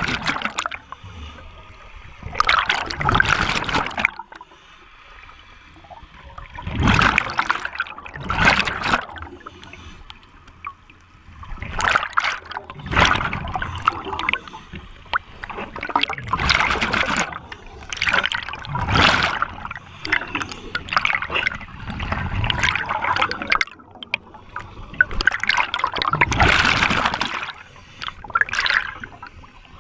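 A scuba diver breathing through a regulator underwater: the exhaled air bubbles out and gurgles in bursts about a second long, every two to four seconds.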